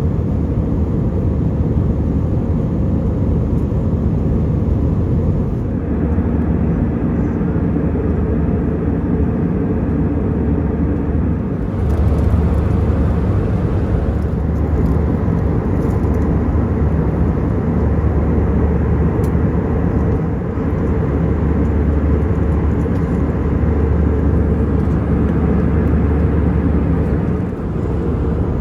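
Airbus A320-200 jet engines running with a steady, loud low rumble.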